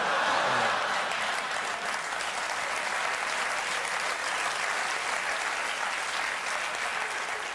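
Studio audience applauding after a stand-up punchline. The applause breaks out suddenly and holds steady for several seconds, easing slightly near the end.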